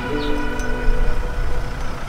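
Background music with held, sustained chords over a low rumble.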